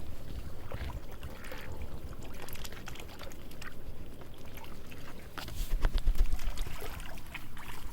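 Water splashing and trickling as ducks feed in a pond, with scattered small splashes and a louder low rumble about six seconds in.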